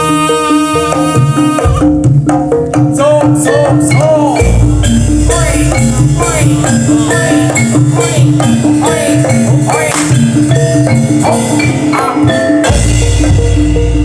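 Javanese traditional percussion music: tuned struck metal or wooden notes repeating in a steady rhythm over drums, with a gliding melodic line above and a deep low tone that drops out and returns.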